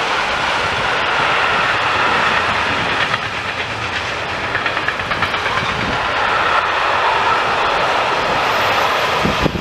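Long electric-hauled freight train of loaded flat wagons passing at speed: steady rumble and hiss of steel wheels on the rails, with a run of quick clickety-clack wheel beats in the middle.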